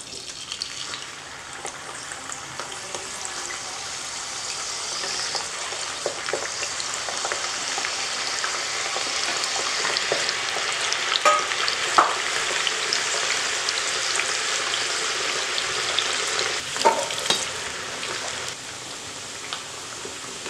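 Raw potato wedges deep-frying in hot oil, a steady sizzle that builds over the first several seconds as the pieces go in and eases a little near the end. A few sharp clinks of a steel slotted spoon on the pan come through the sizzle.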